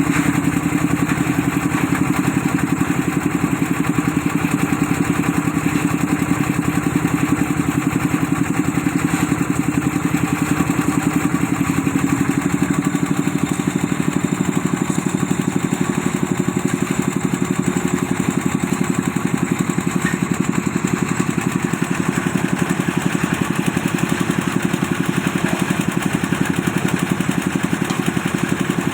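An engine running steadily at constant speed, with a fast, even chugging that does not change.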